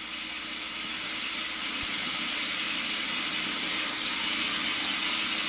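Bathroom sink tap running in a steady stream, slowly growing a little louder.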